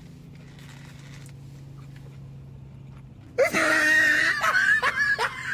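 A low steady hum, then about three and a half seconds in a loud, high-pitched wheezing, screaming voice cuts in suddenly and breaks into quick repeated squeals, as in an edited-in meme sound effect.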